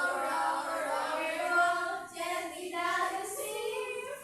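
Young children singing a song together, in sustained notes that move from pitch to pitch, with brief breaths between phrases.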